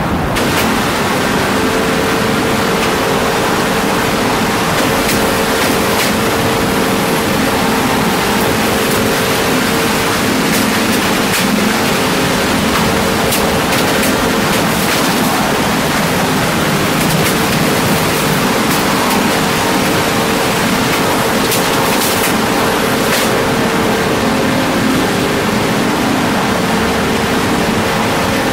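Xerox Phaser 6000 colour printer running a print job: its motors give a steady hum, with a short break about 24 seconds in and a few light clicks, over a loud steady hiss, as it feeds and prints a configuration page.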